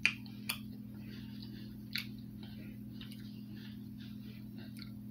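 Close-up mouth sounds of people chewing a milk chocolate almond bar, with a few sharp clicks (the loudest right at the start, others about half a second and two seconds in), over a steady low hum.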